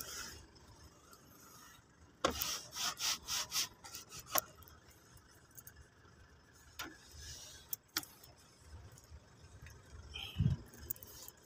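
Cloth rubbing over the plastic engine cover and rubber intake hose of a car engine bay as tire dressing is wiped on, with a quick run of about six strokes a couple of seconds in. Scattered light clicks and a dull bump near the end.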